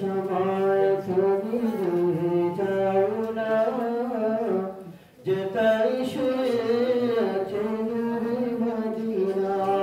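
A man singing an Islamic nasheed solo and unaccompanied, holding long, wavering, ornamented notes. He pauses briefly for breath about five seconds in.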